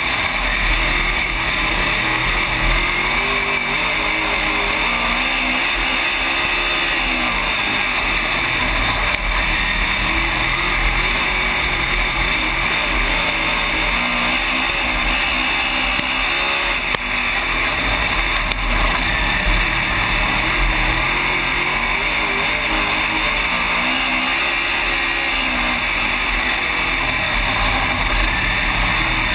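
Dirt-track race car's V8 engine running at racing speed, heard from inside the cockpit over heavy wind and chassis noise. Its pitch sags and climbs again every several seconds as the driver lifts for the turns and gets back on the throttle down the straights.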